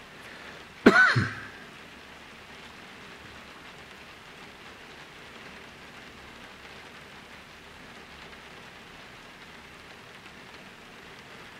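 A brief voice-like sound about a second in, then a steady, faint, even hiss of background noise.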